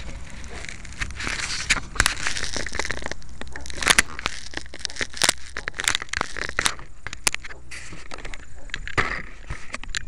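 Crackling and rustling handling noise on a keychain camera's tiny microphone: a dense run of irregular sharp clicks and crackles over a hiss as the RC plane carrying it is moved about.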